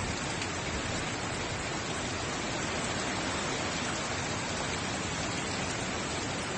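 Hurricane rain and wind: a steady, unbroken rush of heavy rain driven by strong wind.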